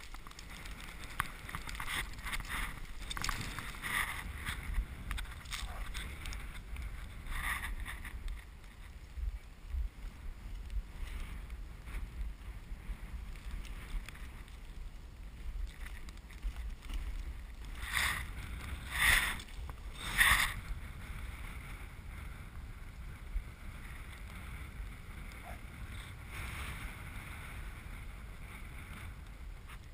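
Dog sled runners hissing and scraping over packed snow, with a steady low rumble. Three louder scraping rasps come close together about two-thirds of the way through.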